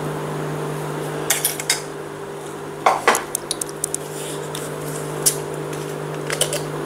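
Steel jar and glass clinking as a thick jamun drink is poured over ice cubes: a few scattered sharp clinks and knocks, the loudest about three seconds in, over a steady low hum.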